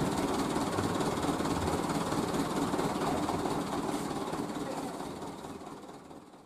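Dump truck with its engine running and its tipper bed raised, unloading a load of sand: a steady noise that dies away over the last second and a half.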